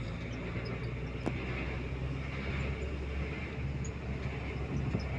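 A vehicle's engine running steadily with road noise as it travels, a low hum under a constant rush. There is one brief click about a second in.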